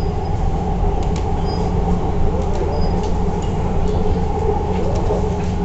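Hyderabad Metro train running between stations, heard from inside the carriage: a steady low rumble of the car rolling on the track, with a few faint ticks.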